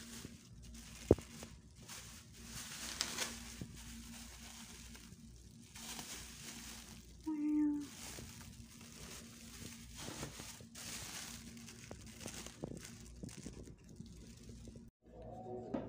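Thin plastic carrier bag rustling and crinkling as a hand rummages through it. A sharp click about a second in, and a short pitched sound a little past halfway.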